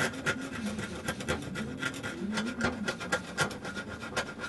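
Screwdriver scraping paint off a painted mini lathe part held in a vice, in repeated short, irregular strokes as the paint flakes away. A faint engine revving up and down runs underneath for the first few seconds.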